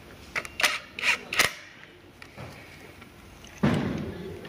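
Workshop tools and parts being handled: a quick run of four or five sharp clacks in the first second and a half, then one heavier thud about three and a half seconds in that dies away over most of a second.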